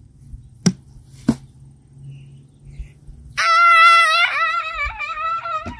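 Two sharp knocks about half a second apart, then a boy's loud, high-pitched scream that starts suddenly a little over halfway through, its pitch wavering as it goes on.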